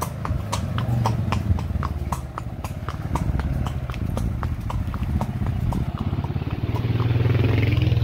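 Horse hooves clopping at a walk on a dirt and stone trail, several irregular hoofbeats a second, over a steady low rumble.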